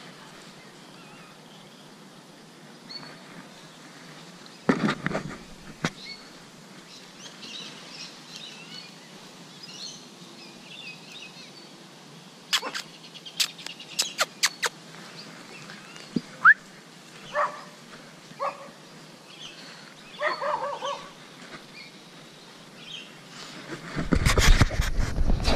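Outdoor garden ambience with birds chirping, a quick series of sharp clicks about halfway through, and a few short calls after them. Near the end the GoPro Hero 5 is handled and rubs loudly against the hand.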